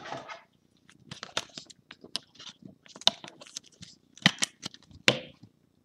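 Sleeved trading card being slid and pressed into a rigid clear plastic card holder: crinkly plastic rustling and scraping with many small clicks, and two louder knocks near the end.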